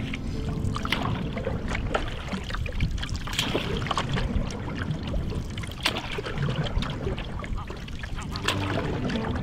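Canoe paddle strokes in open water: irregular small splashes and water dripping and trickling off the paddle blade, over a steady low rumble.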